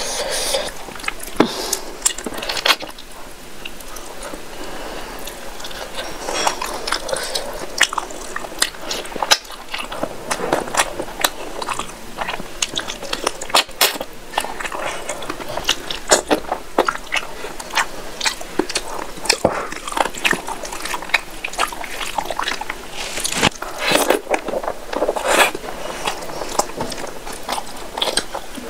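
Close-miked wet eating sounds of a person eating rice and curry by hand: chewing, lip smacks and sucking, with many quick clicks and wet squelches. Near the end, fingers squish and mix rice into the curry on the plate.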